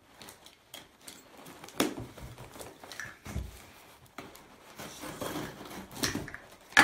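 Small knife cutting the packing tape on a cardboard box: scattered scratching, scraping and ripping of the tape and cardboard, with sharp taps and a dull knock on the box.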